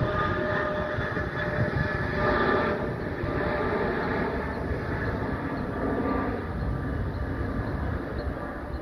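Jet noise from a Boeing 777-300ER's two GE90-115B turbofans at climb thrust just after takeoff: a steady rumble that slowly fades as the airliner climbs away, with the engines' whining tones dropping out about three seconds in.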